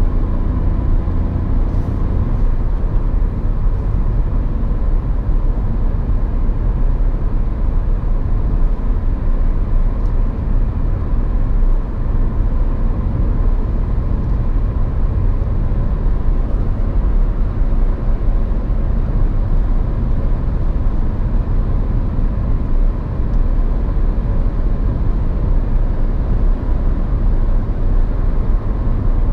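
Hyundai i10's 1.0-litre three-cylinder petrol engine heard from inside the cabin while cruising at a steady speed: a low, even hum mixed with tyre and road noise.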